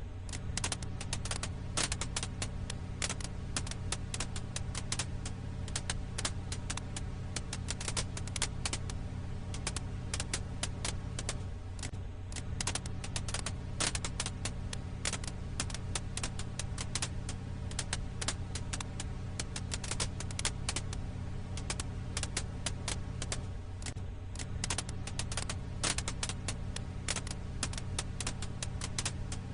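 Wood fire crackling: dense, irregular pops and snaps over a steady low rumble. The pattern seems to repeat about every 12 seconds, as a looped recording does.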